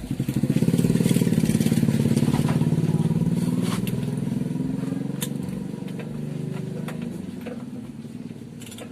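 A motorcycle engine passing by, loudest a second or two in and fading away over several seconds, with a few sharp clicks over it.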